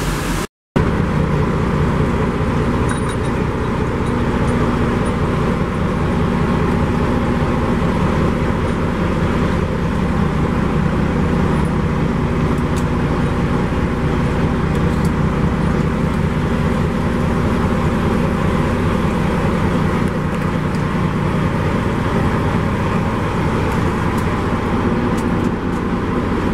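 Steady engine and road noise of a motor vehicle running, an even low rumble that does not change.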